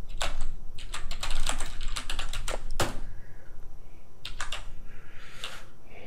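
Computer keyboard typing: a quick run of keystrokes for about the first three seconds, then a few scattered key presses.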